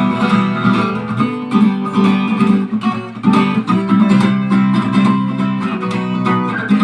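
Acoustic guitar strummed, chords ringing in an instrumental passage of a song.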